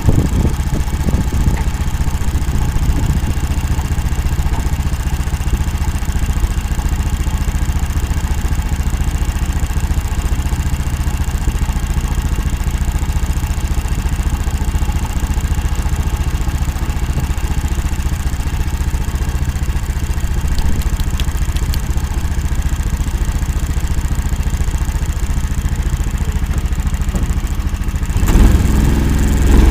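Engine of the Akula all-terrain swamp vehicle running steadily at low revs, then growing suddenly louder near the end as it picks up power.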